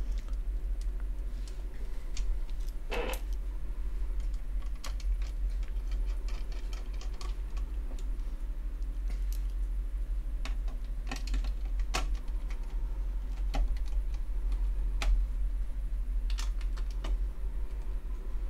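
Scattered small clicks and taps of a screwdriver and fingers on a graphics card as screws are driven into the plastic fan shroud, over a steady low hum.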